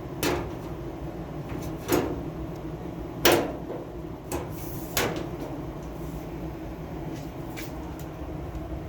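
Several sharp metal clunks and knocks as dryer cabinet parts are slid and set back into place, the loudest about three seconds in, over a steady low hum.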